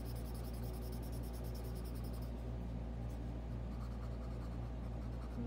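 Paper blending stump rubbing graphite shading on sketchbook paper in quick, even back-and-forth strokes, fainter after about two seconds, over a steady low electrical hum.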